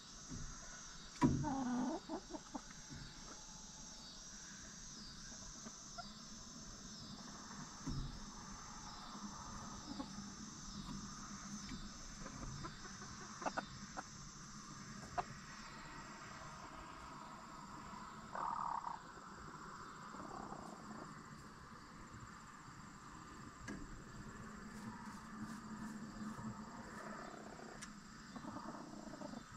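Backyard hens clucking softly, with one louder call about a second in and another past the middle. A high insect chirp pulses about once a second through the first half.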